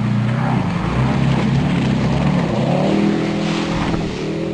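Jet boat engine running hard and revving, its pitch climbing about three seconds in and easing near the end, over the rush of water spray from the jet.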